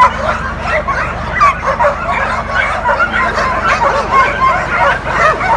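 Many dogs barking and yelping at once, a dense chorus of overlapping barks from a shelter full of dogs.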